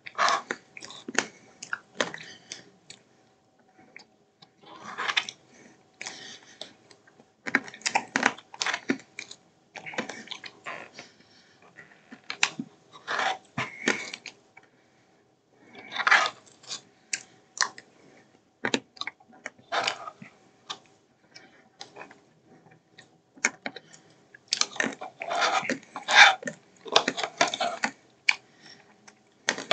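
A spoon scraping and clicking against a bowl of ice cream, with chewing and mouth sounds, in short irregular bursts separated by quiet gaps.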